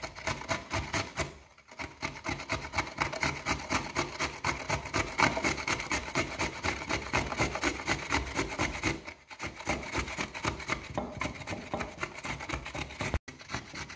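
Fresh ginger root being grated on a hand grater: quick, rhythmic rasping strokes, several a second, with a couple of short pauses.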